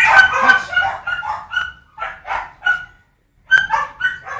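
A dog barking in quick runs of short, high barks, with a brief pause a little past the middle.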